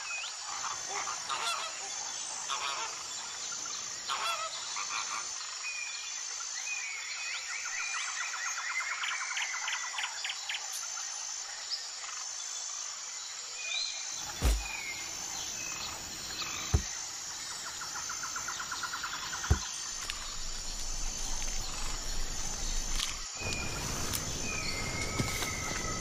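Wild birds chirping and trilling in short, repeated calls over a steady high-pitched drone. Three sharp knocks stand out in the second half.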